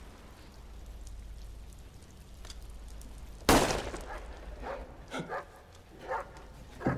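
A single handgun shot about three and a half seconds in, sudden and loud with a short echoing tail, followed by a few softer scattered sounds.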